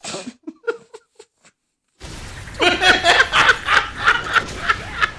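A few brief short sounds, then about two seconds in several people break into loud laughter with a quick pulsing rhythm, reacting to a sneeze.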